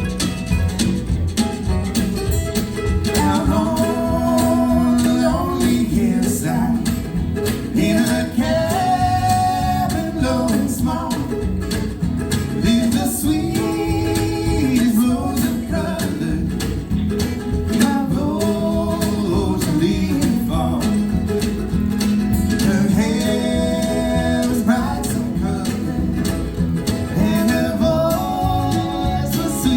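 A live band with guitar playing a country-style song, with a singer's lines coming in about three seconds in and returning phrase by phrase.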